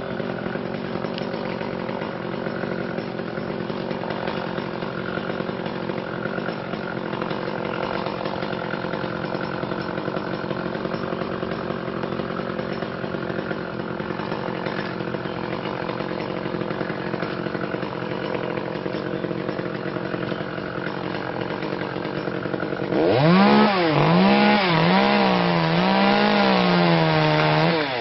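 Chainsaw engine running with a steady drone, then about 23 seconds in it gets louder and its pitch swings up and down repeatedly as the throttle is worked, typical of cutting.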